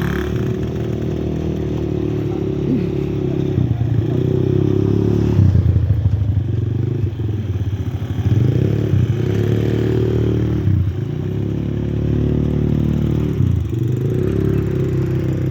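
ATV engine running during a ride, its pitch rising and dropping several times as the throttle is opened and eased off.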